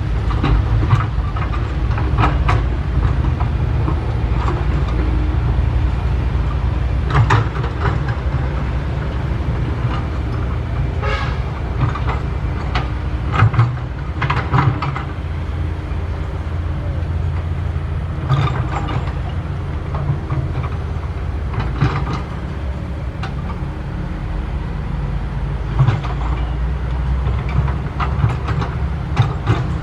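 SANY SY135F excavator's diesel engine running steadily under working load, with metal clanks and knocks every few seconds from the bucket and boom as it digs and loads soil into a dump truck.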